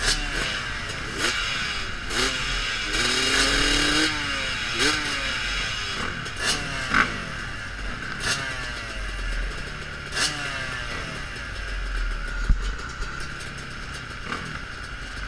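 Suzuki RM-Z450 four-stroke single-cylinder motocross engine revving up and down as the bike is ridden, the pitch rising and falling about once a second with a longer pull about three to four seconds in. Short sharp knocks are heard here and there over the engine.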